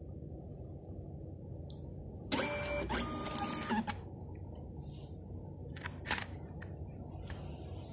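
iT4e desktop label printer feeding out and printing a label, a motor whine in several steady tones lasting about a second and a half, starting a little over two seconds in. A few sharp clicks follow about six seconds in, over a steady low hum.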